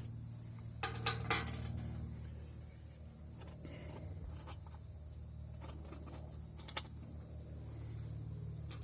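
A few short metallic clicks and clinks of hand tools and bolts, a cluster about one second in and one more near seven seconds, as bolts are taken out of a lawn tractor's panel. Underneath run a steady low hum and a continuous high insect trill.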